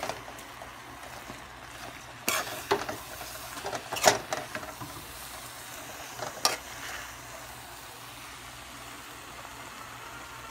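Corned beef fried rice sizzling in a pan with a steady hiss, stirred with a utensil that scrapes the pan a few times: around two seconds in, loudest about four seconds in, and once more past six seconds.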